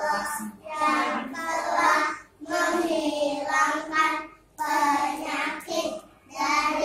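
Young children singing a song in phrases of a second or two, with short breaks between lines.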